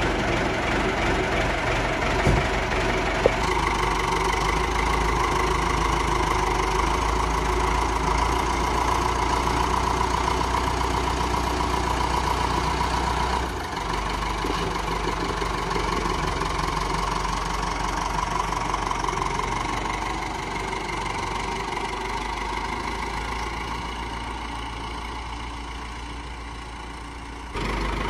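Ford farm tractor's diesel engine running steadily just after starting, with a short sharp tick about three seconds in. The sound changes abruptly about halfway through, fades gradually in the second half, and jumps louder again just before the end.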